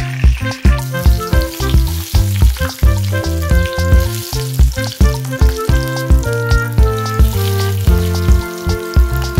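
Hot oil sizzling and bubbling in a frying pan as food fries in it, under background music with a steady beat.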